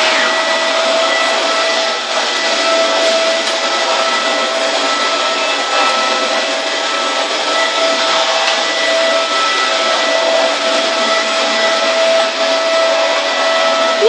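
Dyson DC24 upright vacuum cleaner running steadily with a constant motor whine while it vacuums a rug and wooden floor.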